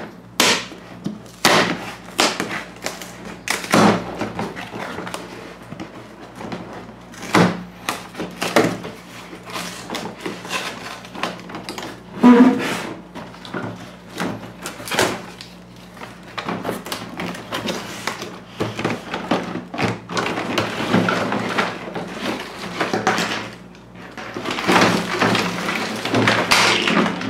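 Cardboard toy box being opened and handled: irregular knocks and thuds as the flaps are worked and the box is tipped against the tabletop. Near the end, plastic track pieces and packaging rustle and clatter as they are pulled out.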